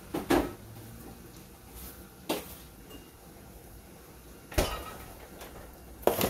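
A few separate sharp knocks and clunks of kitchen things being handled and set down, one every couple of seconds, with a quick double knock near the end.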